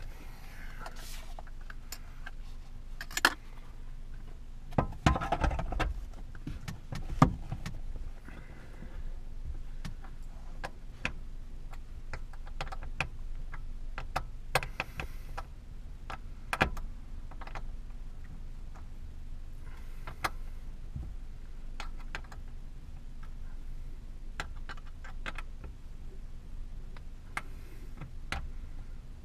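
Scattered plastic clicks and taps, with a few louder knocks, as a Ford pickup's sun visor and its mount are handled and fitted against the roof, over a steady low hum.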